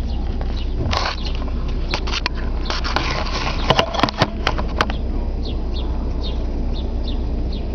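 Ford Thunderbird's engine idling with a steady low rumble while stopped. A flurry of sharp clicks and scrapes comes between about one and five seconds in, and birds chirp in short repeated notes in the second half.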